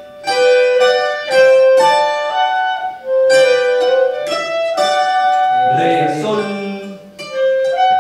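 Colombian plucked-string ensemble of bandolas, tiples and guitars playing a melody together, the notes held and changing every half second or so.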